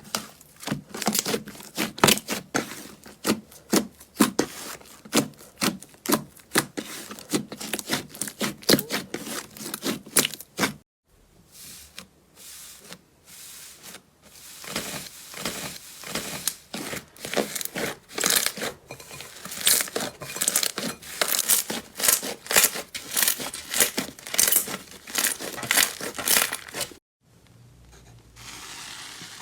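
Slime being squeezed and pressed by hand, making rapid, sharp crackling pops. The popping breaks off briefly about eleven seconds in and again near the end.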